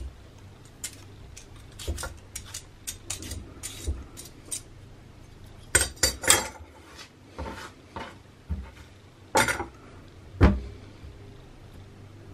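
A metal vegetable peeler scraping the skin off a daikon radish over a wooden cutting board, with irregular clicks and knocks of metal utensils on the board. A cluster of louder clatters comes about six seconds in, and more come again near the end, as the peeler is put down and a kitchen knife is taken up.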